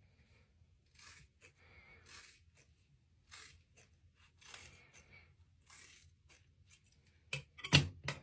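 Hairdressing scissors cutting through a held section of long hair: about five slow snips, roughly a second apart, each a short rasp. Near the end come a few sharp clicks and one loud knock.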